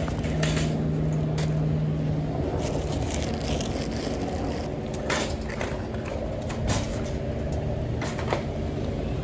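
Wire shopping cart rattling and rumbling as it is pushed over rough asphalt and bumped along curbs, with several sharp knocks as it jolts. A low hum runs under it for the first two seconds.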